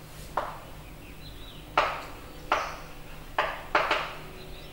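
Chalk writing on a chalkboard: about six short strokes, each starting with a sharp tap and fading quickly, irregularly spaced as a word is written.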